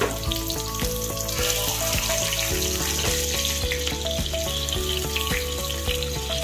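Chopped onions frying in hot oil in a steel kadai, a steady sizzle, with background music playing a simple melody over it.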